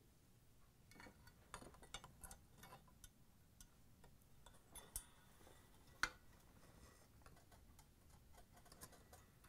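Faint metallic clicks and ticks of needle-nose pliers and a coil spring against the steel motor-mount carriage as the spring is hooked into place, with one sharper click about six seconds in.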